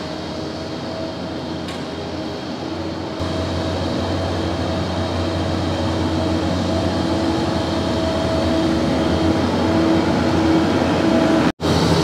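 Self-propelled feed mixer wagon running as it drives along the feed alley and unloads mixed feed from its side discharge, a steady machine hum that grows louder as it comes closer.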